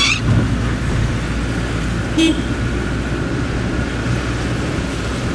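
Car engine and road noise heard from inside a moving car: a steady low rumble, with a brief higher-pitched sound about two seconds in.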